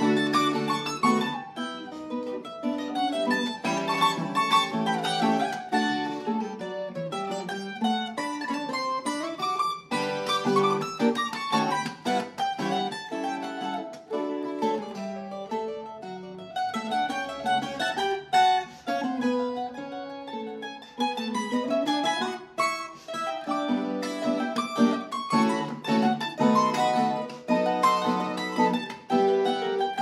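Duet of Colombian bandola and tiple playing a bambuco: the bandola picks a quick melody over the tiple's strummed chords.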